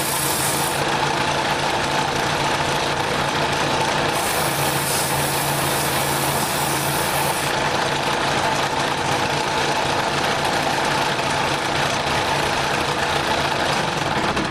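Wood lathe running steadily, with a constant motor hum, as the workpiece spins in a homemade steady rest.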